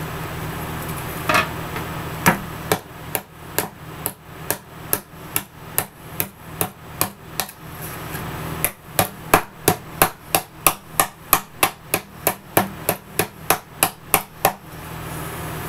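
Claw hammer beating a bent metal license plate flat on a wooden block, in a steady run of blows about two a second. After a brief pause a faster, louder run of about three blows a second follows and stops shortly before the end.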